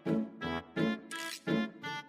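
Background music: bouncy pitched notes repeating at about four a second, with a brief hiss-like burst a little past a second in.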